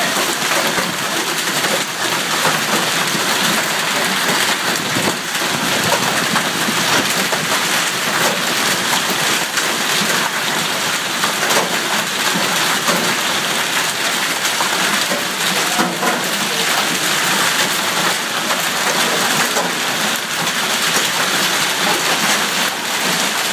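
Hail and heavy rain coming down on grass, pavement and parked cars. It makes a loud, steady hiss of rain, scattered with many sharp clicks and knocks of hailstones striking.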